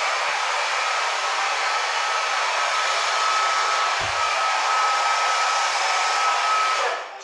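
Hand-held hair dryer blowing steadily, a rush of air with a steady whine through it, switched off and dying away just before the end.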